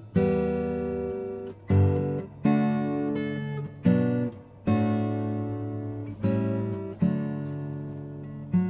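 Background music: acoustic guitar playing chords, a new chord struck about every second and ringing out before the next.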